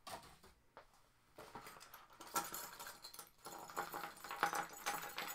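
Plastic accessory bag crinkling as it is opened, with small hard sewing-machine accessories clicking and rattling against each other and the table. It starts about a second and a half in after a quieter moment.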